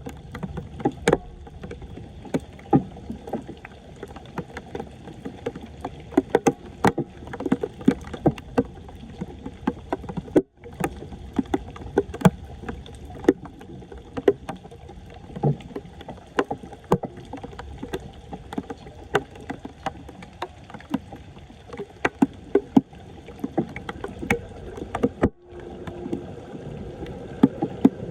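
Floodwater splashing and sloshing around a clogged street drain as it is worked by hand, with frequent sharp, irregular splashes over a steady wash of water. The sound cuts out briefly twice.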